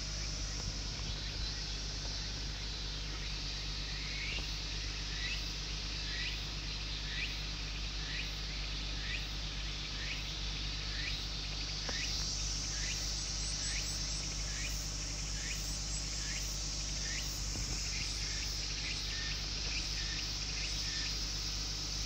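Insects calling: a steady high shrill with a short chirp repeated about one and a half times a second from about four seconds in, over a steady low hum.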